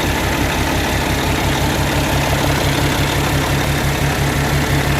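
Cummins diesel engine in a Peterbilt 389 idling steadily after a rebuild, an even low pulsing rumble with a steady hiss over it.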